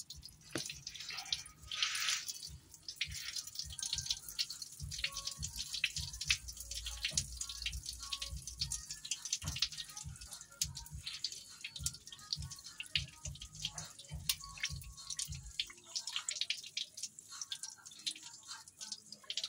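Engine coolant draining out of the side of the D4BB engine block, trickling and splashing onto the wet floor with many small drips.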